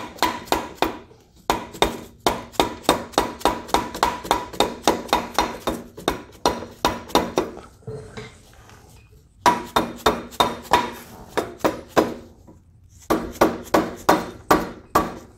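Hammer tapping a new long-travel A-arm and its greased pivot bolt into the frame mount of a Yamaha Raptor 700R ATV. Sharp metallic taps, about three a second, each one ringing. They come in several runs separated by short pauses.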